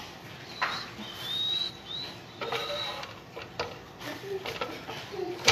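Knocks and light clatter of a cardboard cake board and a plastic cake turntable being handled, ending with a sharp knock as the cake is set down. A brief high squeak chirps a couple of times about a second in.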